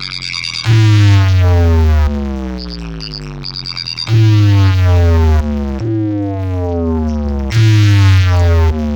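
Electronic DJ synthesizer effect: repeated downward-gliding synth tones over heavy bass blasts that start and stop abruptly, about four times. Short stuttering high chirps come between the bass blasts.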